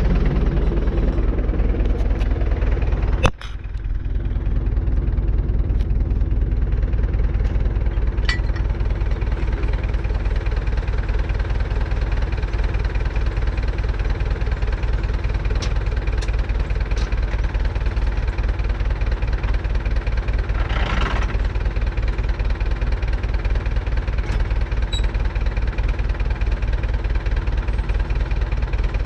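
Universal U650 tractor's four-cylinder diesel engine idling steadily with an even, low knocking beat. A short hiss breaks in about two-thirds of the way through.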